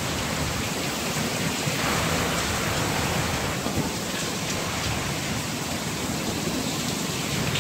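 Heavy stormy rain pouring down, a dense, steady hiss of rain that swells slightly about two seconds in.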